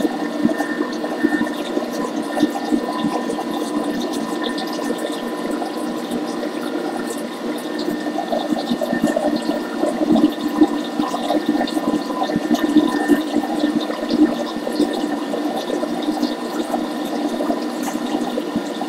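Thermomix TM6 running at speed 5, its blades churning thick cheesecake batter in the closed bowl: a steady whirring churn with a faint motor whine.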